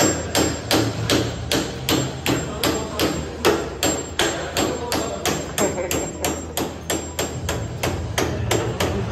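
Hammer striking the steel arm hub of a tripod turnstile in a steady run of quick blows, about four a second, as an arm is fitted into the hub.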